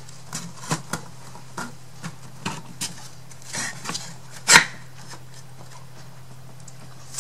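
Thin wooden craft-kit pieces clicking and knocking together as tabs are fitted into slots, a string of light taps with one louder knock about four and a half seconds in, then quiet.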